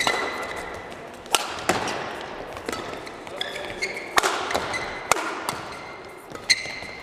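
Badminton doubles rally: rackets strike the shuttlecock in sharp hits at irregular intervals, with short high squeaks of court shoes on the mat between them. Each hit echoes in the sports hall.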